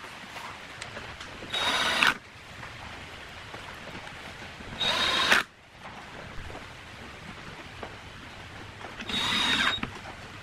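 Power drill run in three short bursts, each about half a second long and a few seconds apart, with a steady high motor whine in each.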